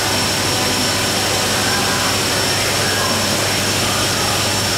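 Automatic bucket-filling machine running water into a rack of plastic flower buckets at once: a steady rushing of water with a constant low hum and a thin high tone.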